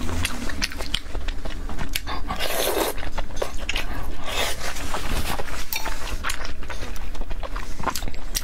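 Close-miked eating of salmon slices in a spicy sauce: wet chewing and slurping with many small mouth clicks, and a couple of louder noisy slurps.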